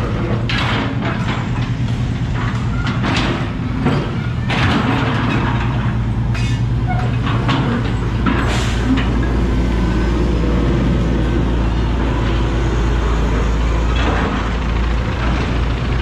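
Diesel engine of a crawler excavator running close by, a steady low drone, with scattered knocks and clatter during the first few seconds and once more about halfway through.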